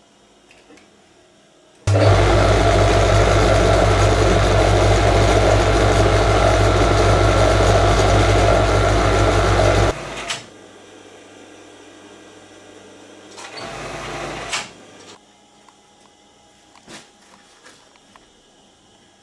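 Electric industrial sewing machine running steadily for about eight seconds, starting and stopping abruptly, then a shorter, quieter run a few seconds later.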